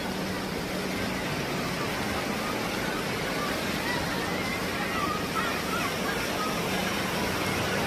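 Steady rushing of wind and sea surf high above a shoreline, with faint distant voices and shouts of a crowd below. A faint low steady hum runs underneath.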